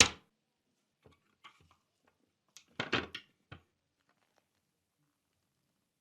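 Small parts of a model car being handled, plastic and metal clicking and knocking. There is a sharp click at the start, a few light taps, then a short cluster of clicks and knocks about three seconds in.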